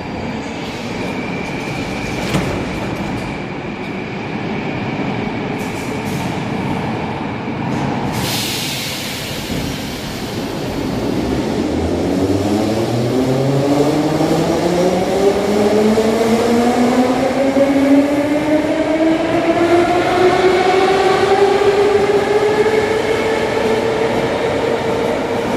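Moscow metro train pulling out of a station. A short hiss comes about eight seconds in, then the electric traction motors' whine rises steadily in pitch and grows louder as the train accelerates along the platform.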